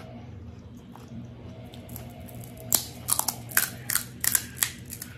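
Crisp fried puri shell cracking as fingers poke a hole in a panipuri: a quick run of sharp cracks over about two seconds, starting about halfway through, over a low steady hum.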